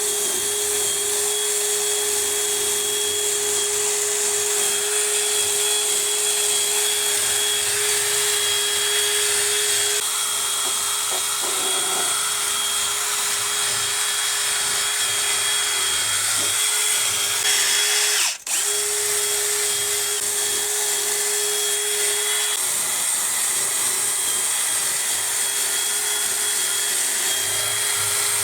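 Power tool running steadily with a constant whine, spinning a stack of abrasive mesh pads against an oak spindle to polish out sanding scratches; it cuts out for an instant about two-thirds of the way through and starts again at once.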